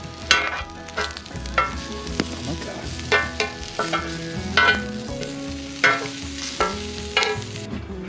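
Food frying in a pan with a steady sizzle, which cuts off just before the end, under plucked guitar background music that sounds a note about every second or so.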